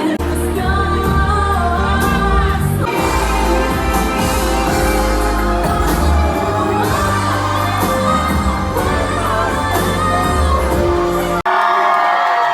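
Pop music with a singing voice over heavy bass. About eleven seconds in it cuts off abruptly and a different stretch of singing follows.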